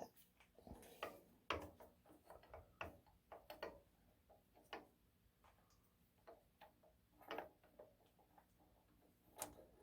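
Faint, irregular light clicks and knocks of metal being handled, as the toe clamp on the milling machine table is swung out of the way.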